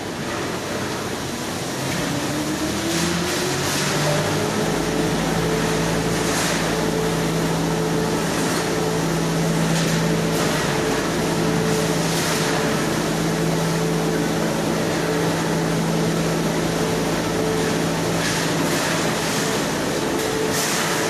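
Hanging-type shot blasting machine running. A motor's tone rises over the first few seconds and then settles, about four seconds in, into a steady hum with a low rumble. Throughout there is a constant hiss, with brief louder surges every few seconds.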